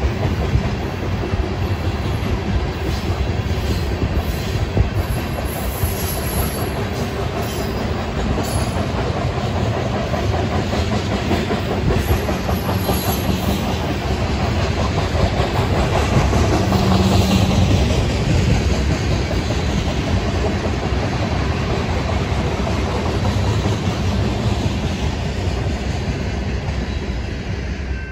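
A freight train of tank cars rolling past, a steady rumble with the wheels clattering over the rails.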